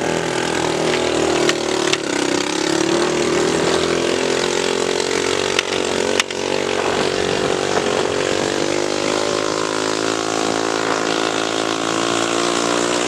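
Honda XL trail motorcycle engine running at a steady speed while riding, heard from the rider's chest-mounted camera with wind and road noise. A few sharp knocks cut through, one about six seconds in.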